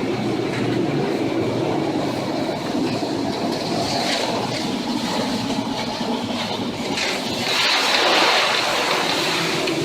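Storm wind and heavy seas heard from aboard a vessel: a steady rumble, with a louder rushing surge about eight seconds in.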